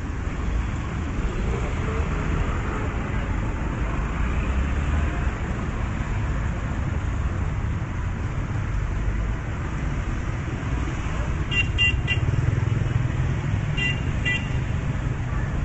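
Road traffic going by, a steady low rumble of engines and tyres. About twelve seconds in, a quick cluster of short high horn toots, and two more about two seconds later.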